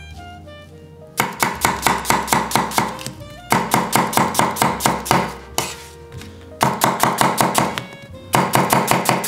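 Chef's knife slicing a yellow onion on an end-grain wooden cutting board, in four quick runs of strokes several a second, starting about a second in. Light background music plays underneath.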